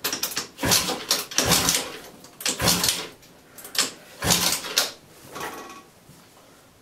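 Yamaha Jog CG50 scooter's 50cc two-stroke engine being kick-started over and over, about once a second. Each kick gives a short clattering whirr as the kick-start spins the engine over, and the engine never fires.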